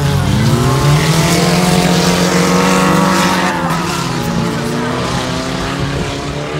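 Several autocross cars' engines revving hard on a dirt track, the pitch rising and falling with throttle and gear changes. The sound grows fainter over the last few seconds as the cars pull away.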